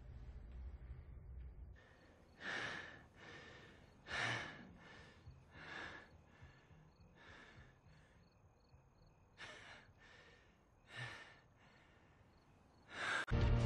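A man breathing forcefully in and out: about a dozen short, hissy breaths with gaps between them, over a faint steady high tone.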